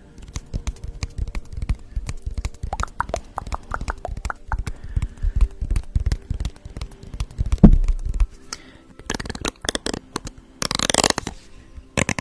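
Close-microphone ASMR handling sounds: fingers rubbing and tapping a small white item against the microphone, giving rapid crackly taps and low thumps. There is a loud thump about eight seconds in and a brief crackling rustle near the end.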